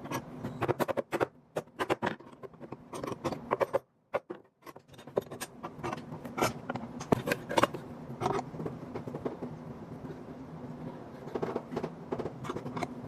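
Irregular knocks and clicks of wooden pieces being handled and worked by hand, with a short break about four seconds in.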